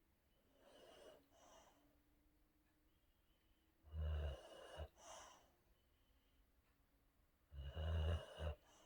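Sleeping boxer dog snoring: two loud snores about four seconds apart, each framed by softer breaths in and out, with faint breathing a second or so in.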